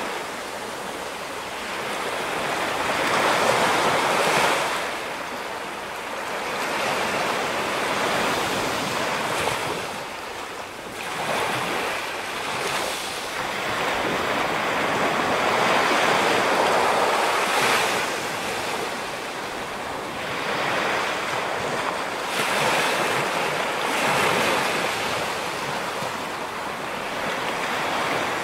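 Ocean surf breaking on a rocky shore, the wash swelling and falling back every few seconds.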